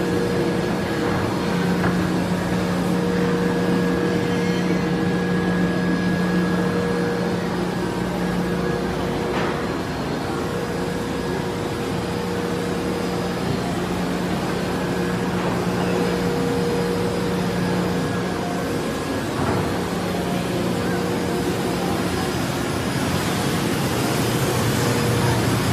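Steady drone of running woodworking machinery on a factory floor: a continuous low hum with a fainter higher tone above it.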